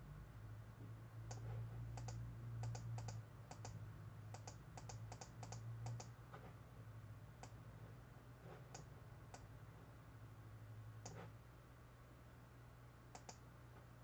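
Light clicks from operating a computer, many in quick pairs: a dense run of about a dozen in the first six seconds, then a few scattered ones. Underneath is a steady low hum.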